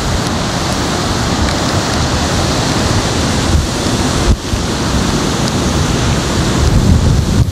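Hurricane wind rushing over the camcorder microphone: a loud, dense, steady roar of noise that briefly drops out about four seconds in.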